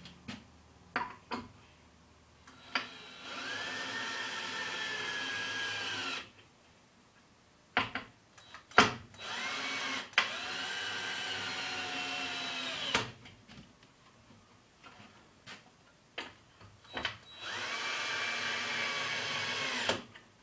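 Power drill driving screws slowly into a wooden board: three runs of a steady motor whine, each about three seconds long, dropping in pitch as it stops. Short clicks and knocks of handling the board and screws come between the runs.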